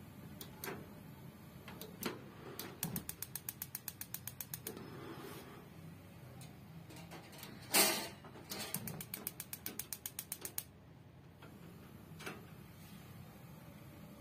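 Rinnai two-burner gas stove's push-button knobs clicking and the spark igniter ticking rapidly, about five or six ticks a second, in two runs of about two seconds each as a burner is relit. A loud click of the knob being pressed comes just before the second run.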